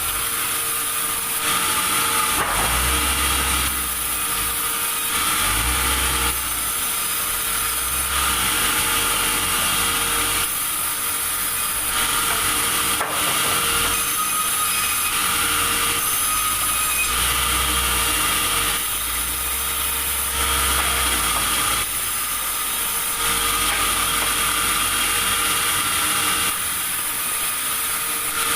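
Sawmill saw running steadily with a constant whine, cutting wood, its sound swelling and easing every second or two as it works through the timber.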